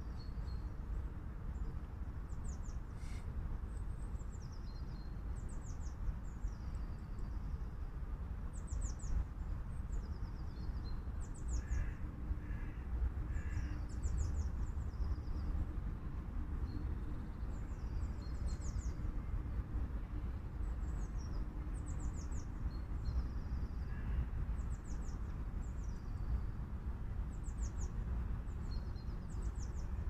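Small songbirds calling again and again with short, high-pitched trilled phrases every second or two, over a steady low rumble. About twelve seconds in comes a run of three short, lower caws.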